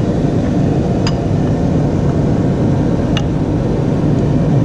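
Two light metallic clinks, about a second and three seconds in, of a steel pick working a Ducabike clutch pressure plate into place, over a steady low background rumble.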